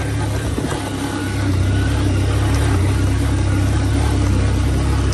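Motorcycle engine running while riding a rough dirt track. Its low, steady hum grows louder about a second and a half in, then holds level.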